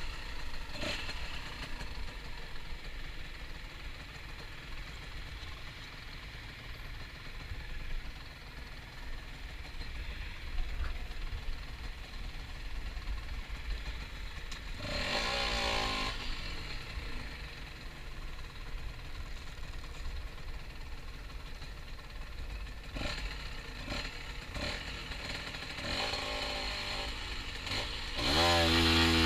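Honda NSR125's two-stroke single-cylinder engine running quietly at low revs, with a brief rev about halfway and a few sharp clicks. It revs up loudly near the end.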